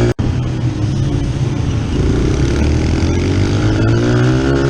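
Dirt bike engine on a flat track, easing off and then accelerating, its pitch climbing steadily through the second half, over a constant low rumble. The sound drops out for an instant just after the start.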